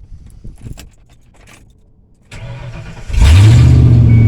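Truck engine being started with the key: a few light key and ignition clicks, a short crank of the starter about two seconds in, then the engine catches about three seconds in and settles into a loud, steady idle.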